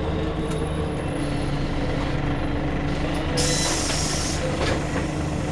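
Scania CN94UB bus heard from inside the saloon: the diesel engine running steadily, with a short hiss of compressed air about three and a half seconds in that lasts about a second.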